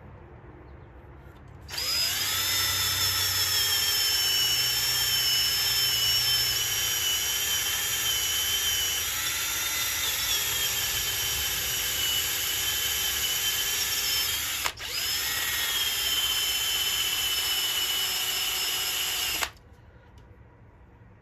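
High-speed rotary power tool whining as it sands a cured JB Weld patch on a metal engine case. It spins up with a quick rise in pitch about two seconds in and runs steadily. It cuts out for a moment about three-quarters of the way through, spins back up, and stops abruptly shortly before the end.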